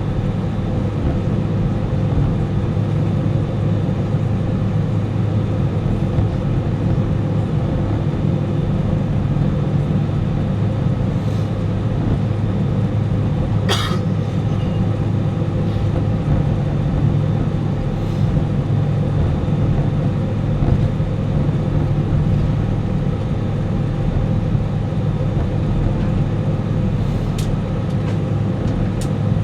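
Airbus A319 cabin noise: the jet engines running steadily at low thrust while the plane taxis, a constant hum with several fixed tones. A single sharp click sounds about halfway through.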